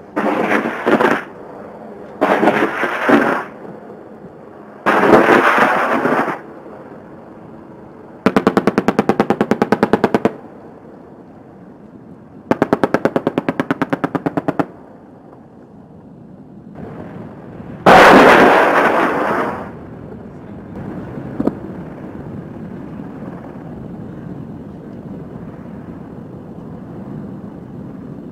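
AH-64 Apache's 30 mm chain gun firing in six bursts of one to two seconds each. In two of them the shots are crisp and rapid, about ten a second; in the others they run together into one rattle.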